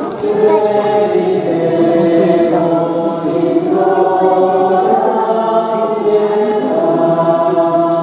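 A congregation of many voices singing a hymn together, holding long notes.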